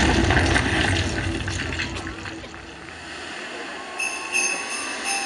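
The projection show's soundtrack over the park's loudspeakers: the music fades away over the first three seconds, then about four seconds in, sleigh bells start jingling in a steady rhythm.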